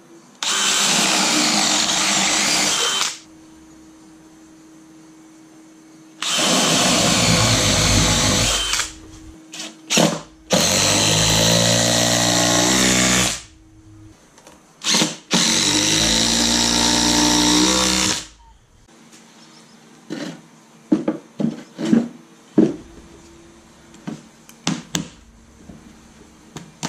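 Cordless drill with a spade bit boring holes into pressure-treated 4x4 posts, run four times for about three seconds each with short pauses between. The motor's pitch shifts as the bit loads up in the third run. A few light knocks near the end.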